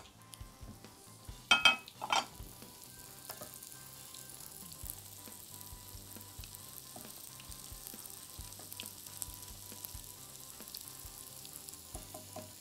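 Qatayef pieces frying in hot oil in a saucepan, a steady sizzle with fine crackles as they crisp, stirred now and then. Two sharp knocks of utensil against the pan about a second and a half and two seconds in.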